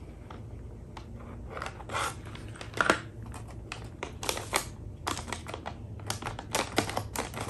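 Paper lunch bags rustling and crinkling in irregular crackles as the folded pleats of a paper-bag snowflake are pressed and handled, with one louder knock about three seconds in.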